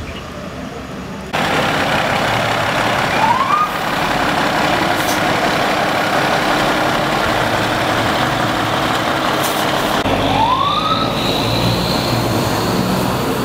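Loud steady noise of a fire engine close by, with two short rising siren whoops, one about three seconds in and one about ten seconds in. The noise starts suddenly about a second in.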